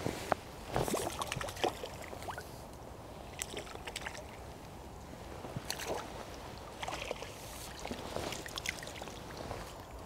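Water splashing and sloshing in scattered bursts as a hooked roach is drawn in and landed at the river's edge.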